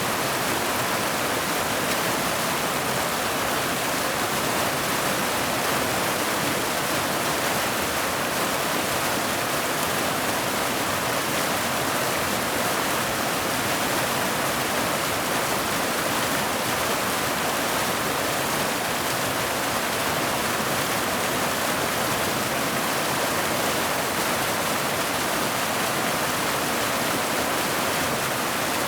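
Mountain waterfall cascading over boulders into a pool: a steady, even rush of water with no deep rumble and no changes.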